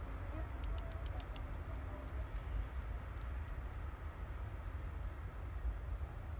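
Steady low rumble of wind on the microphone, with light metallic jingling, many small quick clinks, through most of the stretch.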